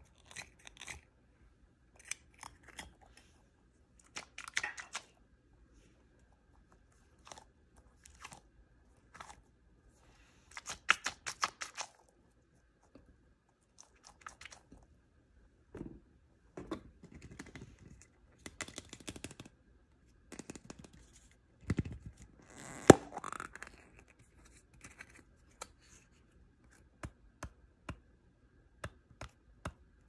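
Hands crinkling and tearing open blind-bag packaging and handling small plastic toys: on-and-off rustles, crackles and clicks with short pauses between them, and one sharp click about three quarters of the way in.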